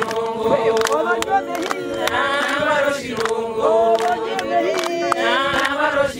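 A group of women singing together unaccompanied, voices held on steady notes with wavering higher lines above, over sharp hand claps.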